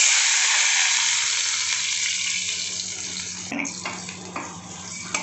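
Boiled raw mango and its cooking liquid poured into hot oil tempered with mustard seeds and dried red chillies in a steel pan: a sudden loud sizzling hiss that fades over about three and a half seconds, followed by a few clinks of a metal spoon stirring in the pan.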